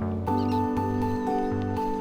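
Background music with held synth-like notes over a repeating bass pattern, with a faint short high chirp about half a second in.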